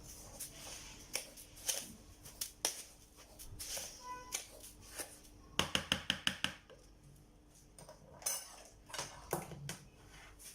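A utensil clinking and scraping against a bowl as grated lemon zest and sugar are mixed by hand, with scattered clicks and a quick run of about seven taps a little past the middle.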